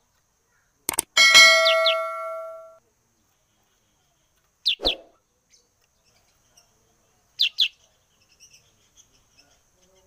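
A caged black-headed bulbul (kutilang sutra) calls twice, each time a quick pair of high chirps sliding down in pitch. About a second in, a click is followed by a loud bell-like ding that rings and fades over a second and a half.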